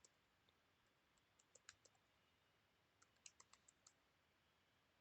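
Faint computer keyboard typing: two short runs of keystrokes, the first about a second and a half in and the second around three seconds in.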